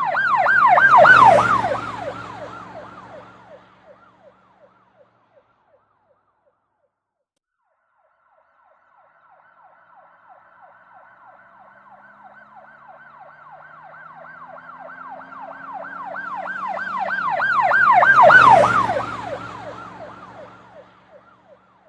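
Police car sirens in a rapid yelp, about four sweeps a second, passing by twice. The first is loudest about a second in and fades within a few seconds. After a short silence a second one approaches, goes by loudest near the end with its pitch dropping, and fades, with the vehicle's engine and road noise underneath.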